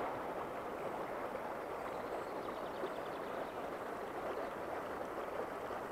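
Steady rush of shallow river water flowing and rippling around the wading angler, with a single brief click at the very start.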